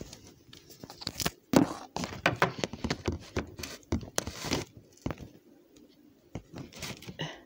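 Handling noise of a tablet being moved and propped up on a kitchen counter: a run of knocks, clicks and rustles picked up by its own microphone, dying down about five seconds in, with a few more knocks near the end.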